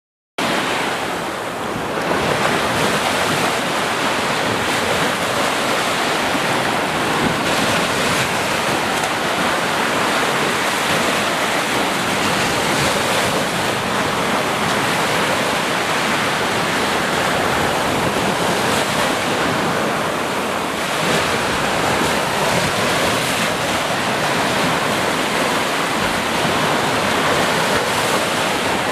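Ocean surf washing steadily onto the shore, cutting in abruptly out of silence about half a second in.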